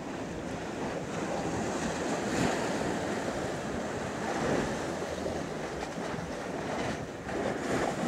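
Sea waves washing against a rocky shoreline, the rush swelling and easing, with wind buffeting the microphone.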